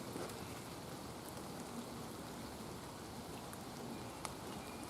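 Light rain falling steadily, with scattered faint drop ticks.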